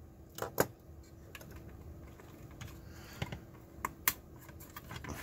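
Small sharp clicks and taps of a plastic plug-in power meter's housing and circuit board being pried and handled with a screwdriver and fingers, a handful of scattered clicks with the loudest about half a second in and about four seconds in.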